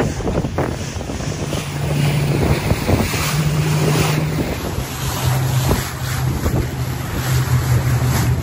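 Tour boat's motor running steadily under way, with wind buffeting the microphone and water noise. The motor's hum drops slightly in pitch about halfway through.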